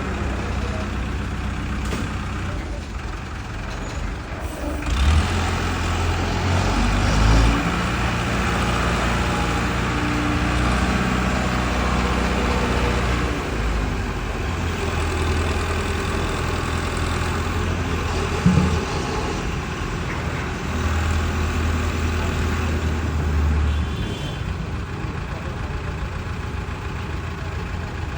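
A heavy engine running steadily, its low hum growing stronger in several stretches as it takes on load, with a brief sharp knock about eighteen seconds in.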